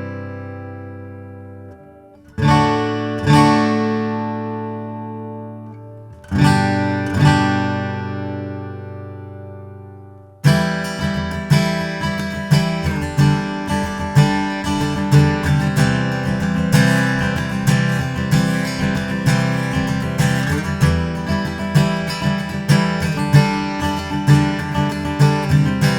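Taylor GO 518e First Edition acoustic guitar, a Grand Orchestra body with solid mahogany back and sides, played unplugged. A chord fades out, then two pairs of strummed chords are each left to ring and die away. About ten seconds in, steady rhythmic strumming starts, with several chords a second.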